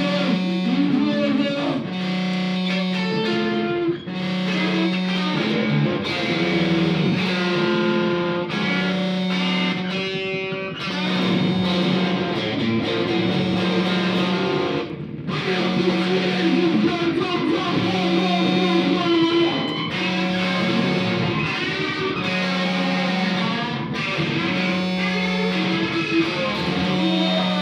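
Telecaster-style electric guitar playing a repetitive experimental piece: one low note is struck and held for about a second over and over, roughly every second and a half, with higher notes and figures sounding above it.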